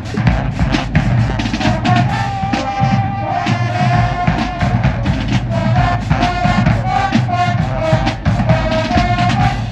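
High school marching band playing: a melody carried over a steady beat of bass and snare drums.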